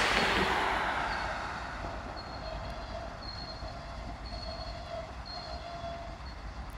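A Norfolk Southern GP38-2 diesel locomotive running as it shoves a train slowly along the track, with a short high tone repeating about once a second. A loud rush of noise at the start fades away over the first two seconds.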